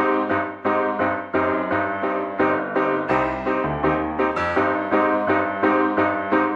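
Background music: piano playing a steady run of struck notes, about three a second.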